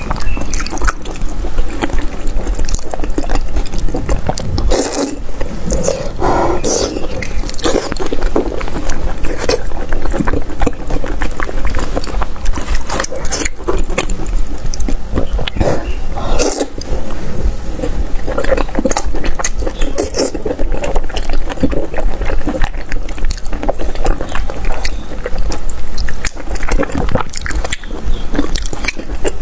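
Broth sloshing and dripping as chopsticks lift long sausages out of a metal pot of spicy soup, with constant wet clicking and a few sharper splashes and scrapes.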